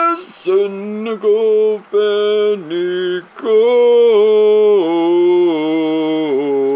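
A man singing wordless, chant-like long held notes. There are a few short breaks early on, then one unbroken line that steps down in pitch.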